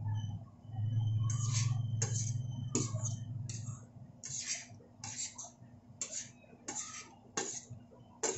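Metal spoon and fork scraping and turning fried tofu and pork pieces in a frying pan, with about ten short scrapes at a steady pace. A low hum runs under the first few seconds and then fades.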